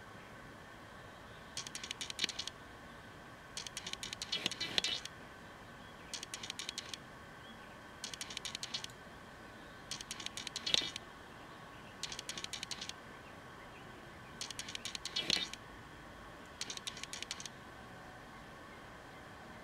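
Metal eyelash curler clicking and rattling as it is squeezed and pumped along the lashes, in about eight short bursts of rapid clicks roughly every two seconds.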